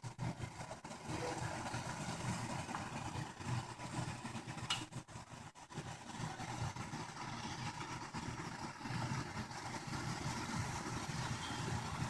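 Pot of water and panela at a hard boil on the stove: a low, uneven rumble of bubbling.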